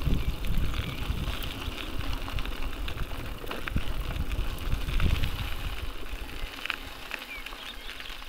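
Low rumble of wind buffeting the microphone with scattered faint ticks and rattles, dying down over the last couple of seconds.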